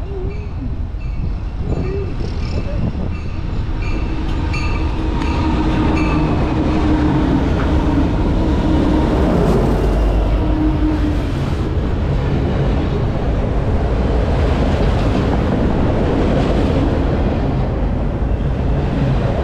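Union Pacific diesel freight train passing close by. It grows louder as the locomotive approaches and runs past, then the freight cars rumble and clatter by steadily. A bell rings in quick repeats during the first few seconds of the approach.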